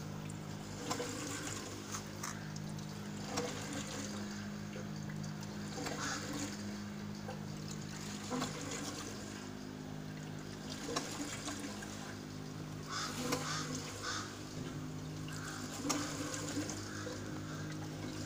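Water gurgling and splashing in an aquaponics fish tank and its drain, with short irregular splashes every second or two over a steady low hum.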